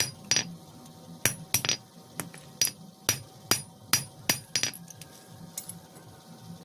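Hand hammer striking the iron of a chisel being forged on an anvil: a dozen or so ringing metallic blows, about two a second, that stop about five seconds in, followed by a few light taps.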